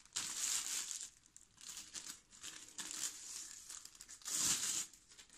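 Thin white protective wrapping crinkling and rustling as it is handled and pulled off a drone battery, in several bursts, the loudest about four seconds in.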